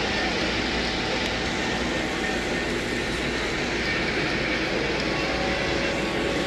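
Steady din of a busy model-train show hall, with model trains running on the layouts.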